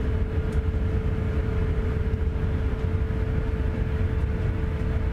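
Steady airliner cabin noise inside a parked Airbus A350-1000: a low rumble of air and systems with a constant mid-pitched hum over it.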